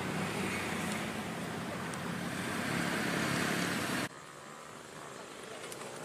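Steady outdoor background noise, a rushing hiss with a low hum under it, that cuts abruptly about four seconds in to a quieter hiss.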